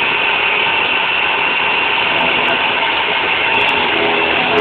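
Small 4-axis CNC milling machine running, its spindle-driven end mill cutting the teeth of a metal worm: a steady high whine over a rough, even cutting noise.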